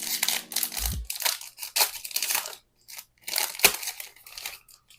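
Foil wrapper of a trading card pack crinkling and crackling as it is torn open and crumpled, in irregular bursts with a short pause partway through.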